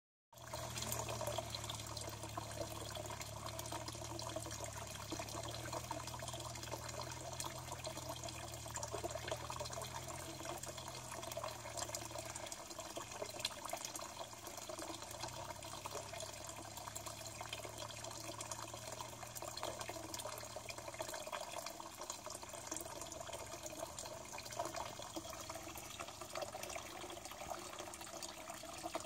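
Steady trickle and splash of water running into a garden pond.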